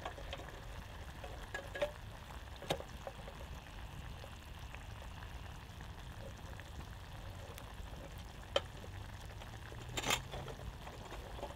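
Steady crackle and hiss of a campfire, with scattered sharp clicks and pops, the loudest about ten seconds in, while a Feuerhand hurricane lantern is handled and lit.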